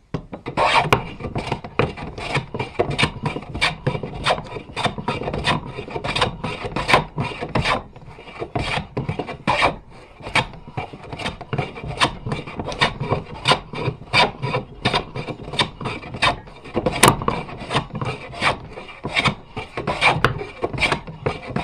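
Stanley No 5 jack plane cutting walnut by hand: a steady run of quick shearing strokes, about two a second, as the sharpened iron lifts full shavings off the block.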